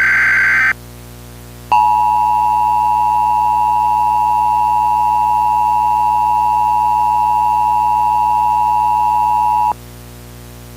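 Emergency Alert System broadcast tones. The first second holds the tail of a SAME digital header burst of rapid data tones. After a short gap comes the EAS two-tone attention signal, 853 and 960 Hz sounded together, held steady for about eight seconds and then cutting off sharply. The attention signal announces that a spoken emergency alert is to follow.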